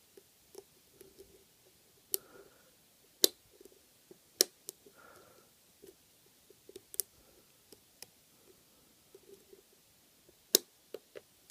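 A steel hook pick and tension wrench working the pins of a 5-pin brass padlock: faint scraping and ticking, broken by about five sharp, irregular clicks as pins are lifted and set.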